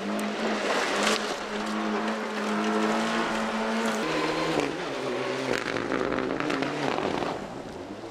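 Rally car engine running hard at steady high revs as the car comes through a gravel stage. About four seconds in, the engine note changes and wavers, then fades near the end.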